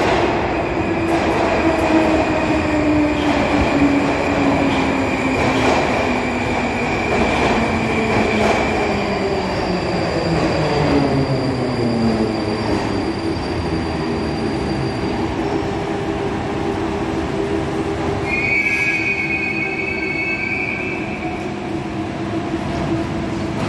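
81-726.1 'Baltiets' metro train pulling into the station and braking to a stop: several whines fall in pitch together over the first fourteen seconds or so, then settle into a steady hum as it stands. About eighteen seconds in, a two-tone chime sounds for a couple of seconds as the doors open.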